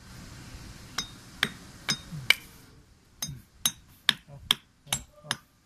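Sharp wooden knocks and clicks, about two a second, as a wooden block is worked against a black metal tool's jaws. A steady hiss stops about two and a half seconds in.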